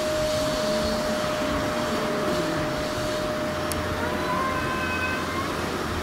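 Steady background hum and noise, with a faint low, wavering cat yowl beneath it in a territorial standoff, and a faint higher call about four seconds in.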